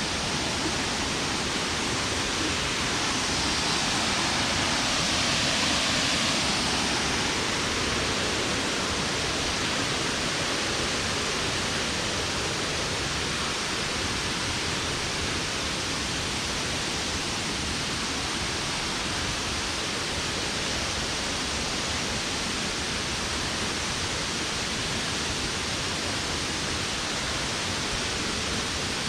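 Waterfall pouring: a steady, dense rush of falling water that swells slightly a few seconds in.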